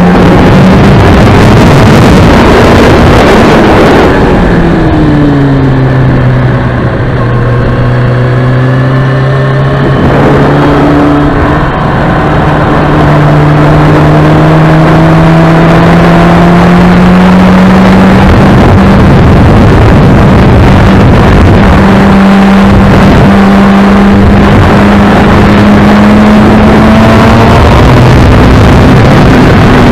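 Kawasaki ZX-6R inline-four sport-bike engine running under load, with loud wind noise over the microphone. About four seconds in the engine note falls sharply as the throttle closes. It steps up again around ten seconds in, then climbs steadily and holds high.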